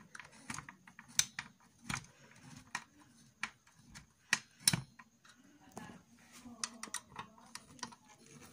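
Irregular sharp clicks and small taps of a screwdriver working the heatsink fan's mounting screws down onto the motherboard.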